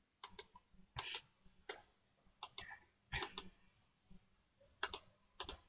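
Faint clicking at a computer: about six short clicks, each a quick double, irregularly spaced.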